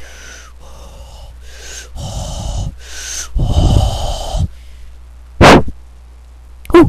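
A person making exaggerated breathy wheezing and huffing noises with the mouth: about six raspy breaths in the first four and a half seconds. A short, loud, sharp puff follows about five and a half seconds in.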